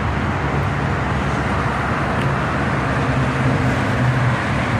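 Steady road traffic noise with a low hum underneath.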